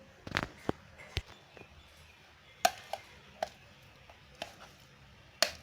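Light, scattered knocks and clicks of a utensil against the blender jar and bowl as the blended chicken mince is scooped out, about nine separate taps over a few seconds.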